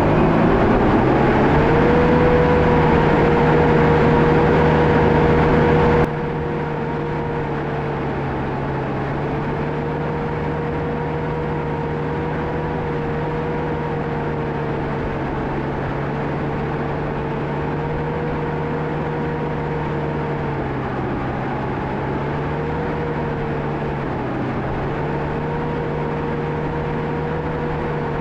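John Deere 650K crawler dozer's diesel engine revving up over the first couple of seconds, then running steadily under work. It drops suddenly in level about six seconds in, and its pitch dips briefly twice near the end.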